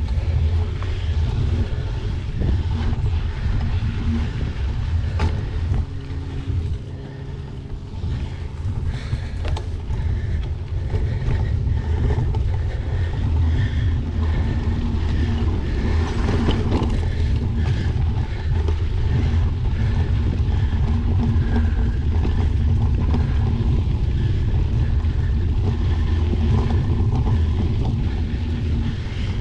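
Wind buffeting the microphone of a camera mounted on a bicycle riding a dirt trail, mixed with the rumble and rattle of the bike over the ground. A few sharper knocks stand out, one about five seconds in and several around sixteen to seventeen seconds in.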